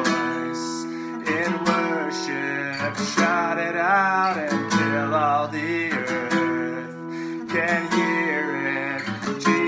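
A man singing a worship song while strumming an acoustic guitar.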